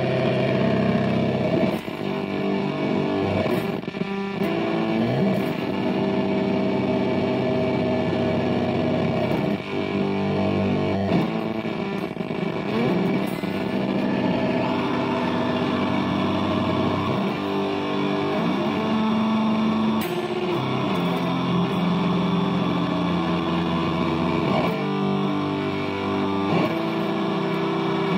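Electric guitar run through the Magpie Pedals Fruits effects pedal: held notes and chords that change every second or two, with gliding pitch sweeps here and there.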